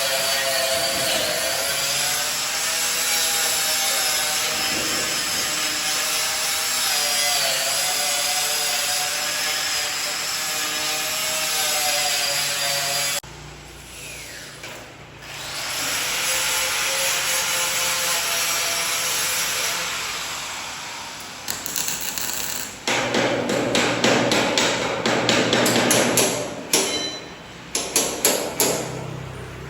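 A power tool running on steel, its pitch wavering with load, cut off abruptly about 13 seconds in and then heard again for several seconds. In the last several seconds, a rapid run of hammer blows on metal.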